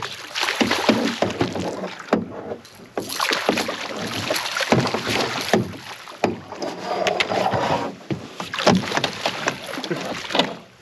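Hooked striped bass thrashing and splashing at the water's surface beside the boat in repeated bursts, with scattered sharp knocks.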